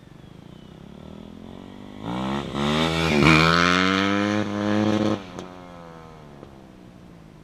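Kawasaki KX250F motocross bike's single-cylinder four-stroke engine accelerating hard, its pitch climbing in steps with brief breaks as it shifts up, loudest about three seconds in. The throttle snaps shut a little after five seconds and the engine sound fades away.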